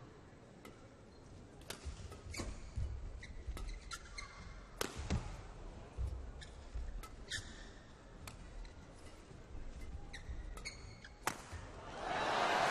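Badminton rally: sharp racket strikes on the shuttlecock about once a second, with shoes squeaking on the court floor between them. Crowd noise swells near the end.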